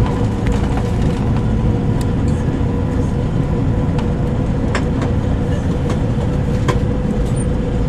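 Passenger train running at speed: a steady low rumble and rush with a steady hum over it, and scattered sharp clicks from the wheels and track.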